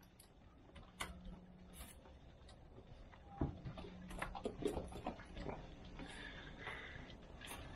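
Goats moving about and jostling on straw bedding: scattered light hoof knocks, clicks and rustling, fairly faint.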